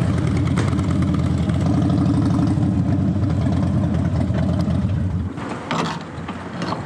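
Harley-Davidson V-twin motorcycle engine idling with a lumpy, pulsing beat, then switched off about five seconds in. A short knock follows shortly after.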